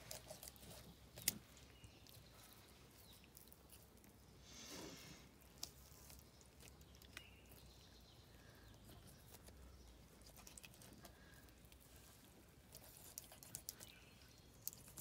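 Very quiet wet clicks and small scrapes of a knife skimming along the bone as a raw chicken breast is peeled away from the carcass by hand, with one sharper click about a second in.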